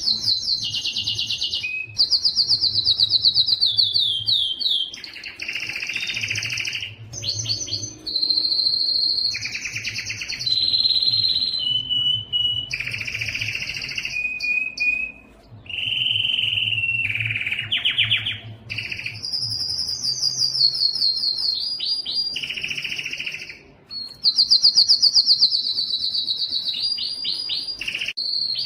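Domestic canary singing: a long song of rapid trills, each phrase a fast run of one repeated note before switching to the next, with a couple of short breaks.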